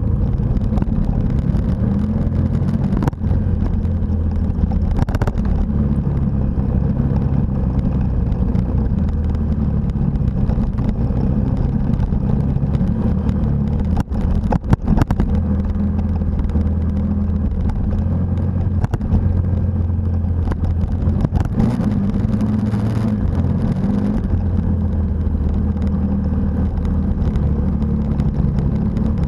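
Motorcycle engine running under way on a dirt road, its pitch rising and falling with the throttle, with a few brief dips in loudness.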